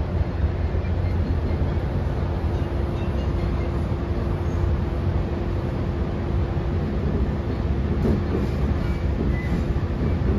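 Interior of an Oscar H set electric multiple-unit train running along the line: a steady low rumble of the wheels and running gear, with a constant hum under it. A few light rattles come near the end.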